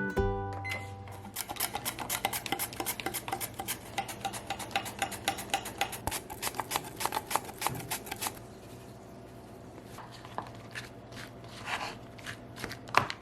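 Kitchen knife chopping food on a cutting board in fast, even strokes, about five or six a second. Past the middle it slows to scattered single taps and clicks.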